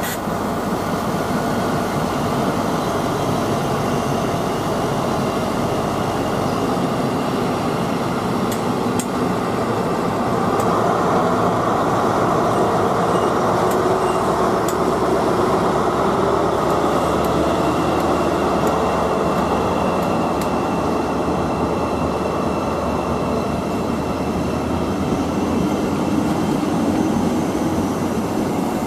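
Class 43 HST power car's diesel engine running under power as the train pulls slowly away, a steady engine note that grows a little louder about a third of the way in, with the Mark 3 coaches then rolling past on the rails.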